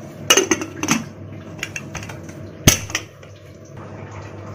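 Aluminium Pigeon pressure cooker lid being fitted and closed on the pot: a string of metal clinks and knocks, the sharpest about two and a half seconds in.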